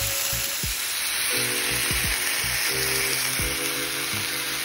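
Stuffed chicken breasts searing in oil in a frying pan over medium heat, sizzling steadily. Background music plays underneath.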